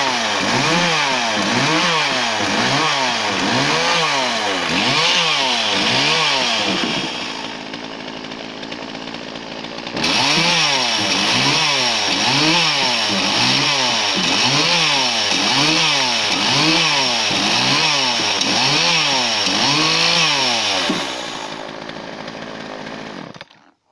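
Husqvarna 142 two-stroke chainsaw cutting slab wood into short firewood pieces. The engine note rises and falls about once a second, one swell per cut. It eases off for a few seconds about a third of the way in, cuts again, then winds down near the end and stops abruptly.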